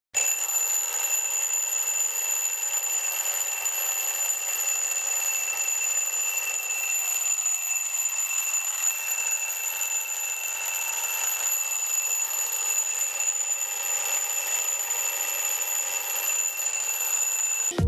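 Twin-bell analog alarm clock ringing continuously, its hammer striking the two metal bells in a steady high-pitched ring. The ringing cuts off suddenly near the end.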